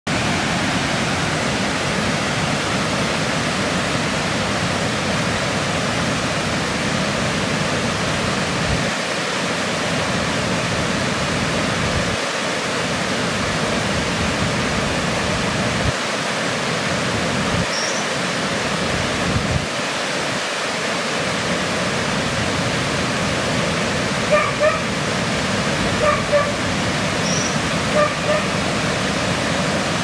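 Woodland ambience: a steady rushing noise with a low rumble that drops away briefly several times, and short repeated bird calls in the last few seconds.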